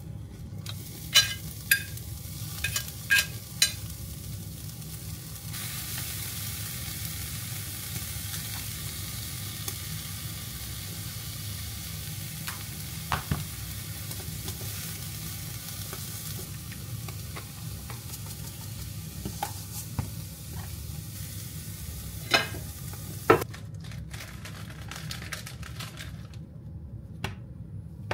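Food frying in a pan, a steady sizzle that grows louder for about ten seconds in the middle. Several sharp clicks and knocks of a utensil against the pan come early on and again near the end.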